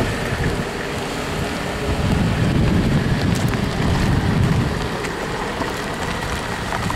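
Wind buffeting the camcorder's microphone: a steady rushing rumble that swells and fades, with a few faint clicks.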